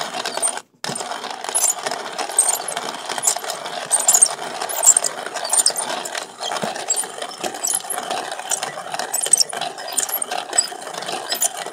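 Hand-cranked coffee grinder with a ceramic burr crushing coffee beans: a steady crunching, crackling grind with dense little clicks. It stops for a split second near the start, then keeps going.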